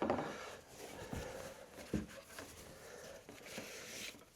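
Hands working on motorcycle parts: a brief scrape at the start, then two soft knocks about a second apart among light rustling and handling noise.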